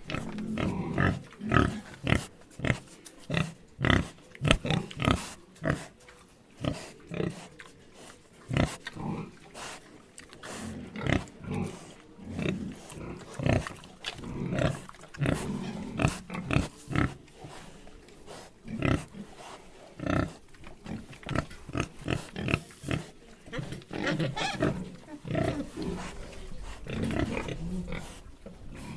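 Pigs grunting in short, irregular bursts, often several a second.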